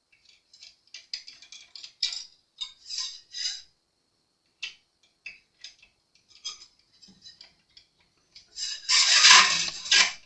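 Small clicks and metallic scrapes of a cheap acoustic guitar's tuning machines and steel strings being handled while a string is wound on, with a louder stretch of scraping near the end.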